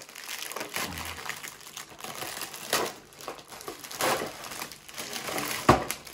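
Gift wrapping paper crinkling and rustling in irregular crackles as it is pulled off a present, with one sharp knock near the end.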